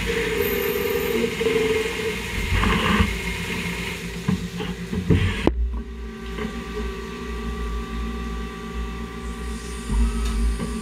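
Nakamura WT300 CNC turn-mill lathe machining a crankshaft: the machine runs with a steady hum and whine while coolant sprays over the work. About halfway through, the coolant hiss cuts off suddenly, leaving the machine's hum and tones.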